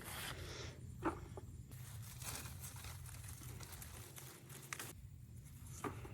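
Rustling and crinkling of garden plant leaves being handled, with a few short snaps.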